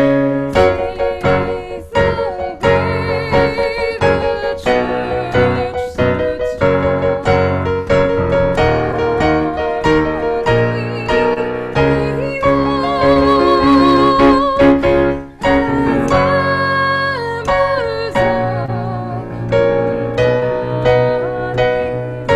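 Piano music with a voice singing over it, the sung notes held with vibrato; the music dips briefly about two thirds of the way through.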